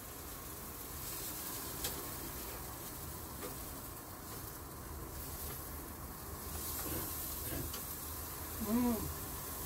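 Skewers of meat and vegetables sizzling on an electric tabletop grill, a steady hiss. There is a light click about two seconds in and a short pitched hum near the end.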